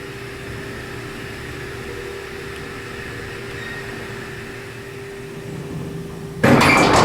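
Hydraulic freight elevator hum with a steady tone, then about six and a half seconds in a much louder mechanical clattering rumble starts suddenly.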